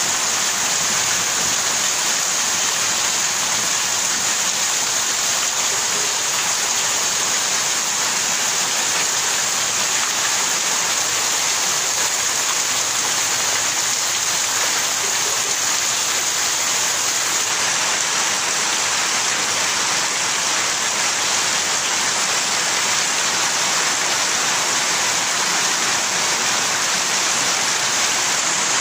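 Heavy rain falling steadily on hard ground: a dense, even hiss of downpour with no let-up.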